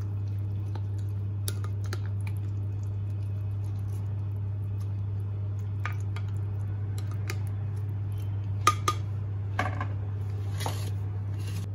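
Plastic spatula stirring a wet yogurt mixture in a ceramic bowl, with scattered light clicks and a few louder knocks against the bowl near the end, over a steady low hum.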